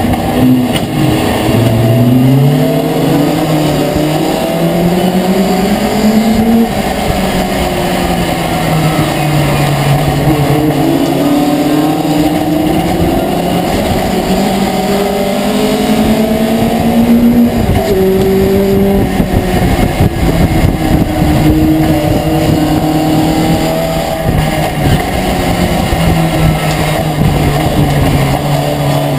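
Racing pickup truck's engine heard from inside the cab at full race pace, its note climbing and then dropping back again and again at each gear change, then holding a steadier pitch toward the end.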